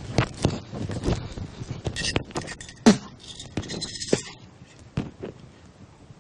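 Small objects being handled on a table: a string of clicks, knocks and scrapes, with two short rustling bursts in the middle and one sharp knock, the loudest, about three seconds in.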